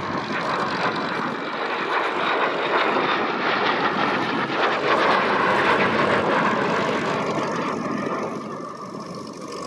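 De Havilland Venom jet fighter's single turbojet engine as the aircraft flies past: a broad rushing jet noise that builds to its loudest about halfway through, then fades.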